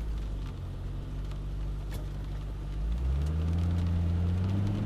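Car engine running steadily while driving, then rising in pitch as the car accelerates about three seconds in.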